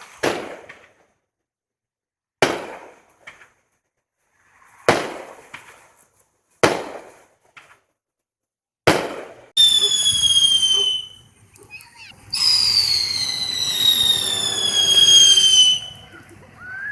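Fireworks going off: a string of sharp bangs with echoing tails, about two seconds apart, then two shrill whistles that slide slowly down in pitch, the second lasting about three and a half seconds.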